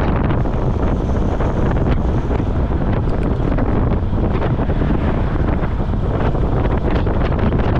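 Wind rushing over an action camera's microphone on a road bike moving at about 25 mph: a loud, steady rumble of buffeting air.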